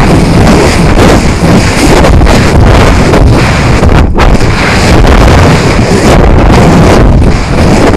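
Loud, gusty rush of airstream buffeting the onboard camera's microphone as the rocket's sustainer falls under its 18-inch drogue parachute at about 98 ft/s.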